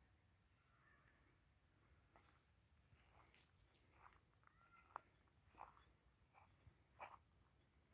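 Near silence: faint outdoor ambience with a steady high-pitched insect drone and a scattered handful of short, sharp chirps from about two seconds in.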